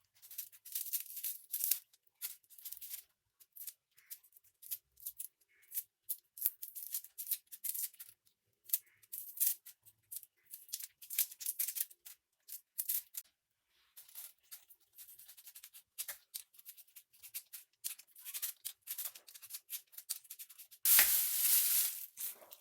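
Cleaning sounds: quick, irregular rustling and scrubbing strokes, with a louder hiss lasting about a second and a half near the end.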